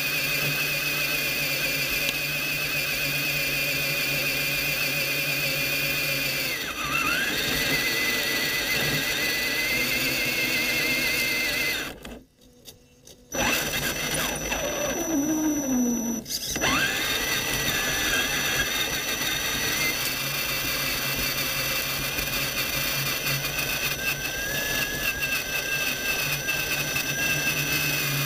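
Electric motor and gears of an Axial SCX10 Honcho 1/10 RC rock crawler whining steadily as it drives, heard from inside the truck's body. The whine drops off about six seconds in, cuts out almost completely for about a second and a half around twelve seconds, then sweeps back up and settles into a steady whine again.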